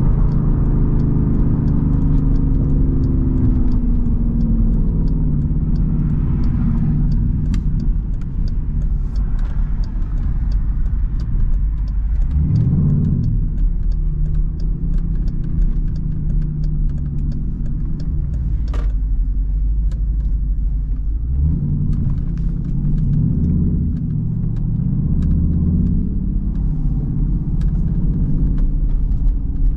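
Straight-piped Jeep SRT's V8 exhaust rumbling inside the cabin while driving, with a brief rise and fall in engine pitch about twelve seconds in and a step in the engine note around twenty-one seconds.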